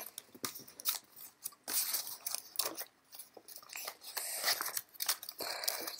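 Origami paper being folded and creased by hand into box pleats: irregular crinkles and crackles of the paper.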